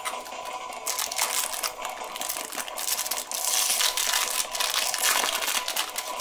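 Foil booster pack of Panini Adrenalyn XL cards crinkled and torn open by hand, the crackling loudest from about three to five seconds in.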